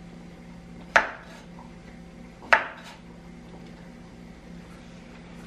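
Two knocks, about a second and a half apart, as a wavy crinkle-cutter blade is pressed through cooked carrot and strikes a wooden cutting board, over a faint low hum.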